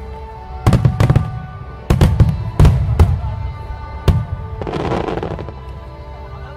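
Fireworks display: aerial shells bursting with sharp bangs, about seven in the first four seconds, some in quick pairs. About five seconds in comes a spell of crackling from glittering stars.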